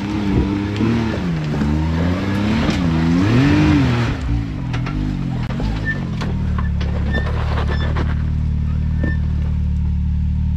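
Side-by-side UTV engine revving up and down in quick swells for about six seconds on a rock-ledge climb, then settling into a steady idle.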